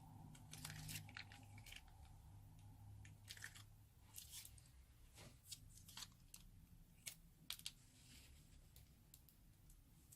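Faint crackling and small popping clicks of slime being squeezed from a piping bag and worked by hand, coming in irregular clusters.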